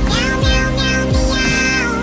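Electronic music with a deep kick drum beating roughly twice a second under a high lead melody whose notes bend and glide.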